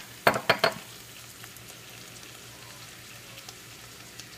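Stir-fry vegetables sizzling quietly in a hot pan. Near the start, a quick run of about four sharp clicks as a seasoning bottle is handled.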